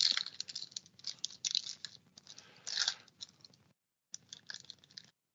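Crinkling and scratching of trading cards and their foil wrapping being handled, a dense crackle that stops briefly just before four seconds and cuts off sharply about five seconds in.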